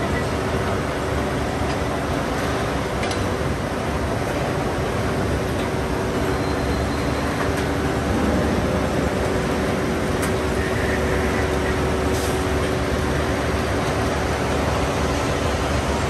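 Steady, loud running noise of a rebar hot-rolling mill's roll stands and drive motors as red-hot steel bar passes through them, with a steady hum and a few faint clicks.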